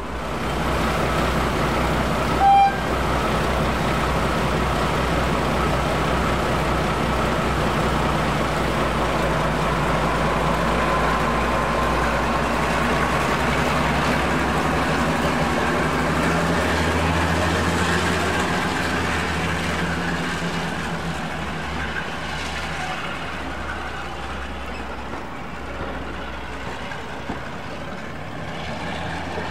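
Diesel locomotive engine running loud and steady, with one short toot about two and a half seconds in. The low engine note strengthens around the middle, then gradually grows quieter.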